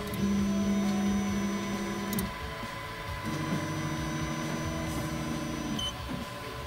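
Afinia H400 3D printer's stepper motors whining as the build platform moves through its initialization routine. There is one steady-pitched move of about two seconds, a short pause, then a second move of about two and a half seconds at a different pitch.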